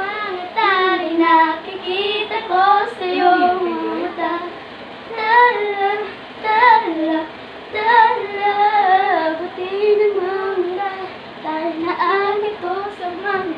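Young girls singing a Tagalog pop song's tune together while dancing, the melody moving up and down in short phrases.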